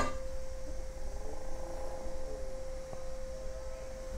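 Steady electrical hum at one pitch, opening on the tail of a sharp click as a glass pane is set against the lamp box, with a faint wavering whine beneath the hum.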